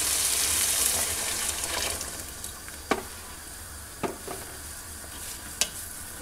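Hot water poured into a pot of frying octopus and vegetables, hissing and sizzling loudly and then dying down after about two seconds. A ladle then knocks sharply against the pot three times as the mixture is stirred.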